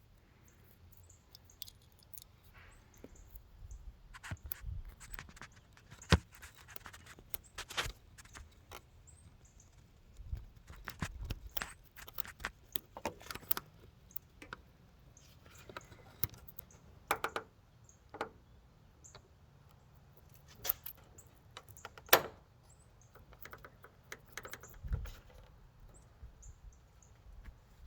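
Scattered light clicks, taps and clinks of small metal parts and hand tools being handled, a few sharper knocks among them, with no steady motor sound.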